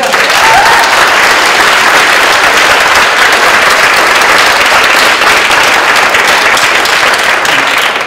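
Audience applauding: loud, dense, steady clapping that tails off near the end.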